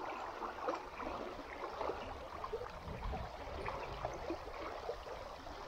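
Flowing water gurgling and trickling, a low, even wash with small scattered gurgles.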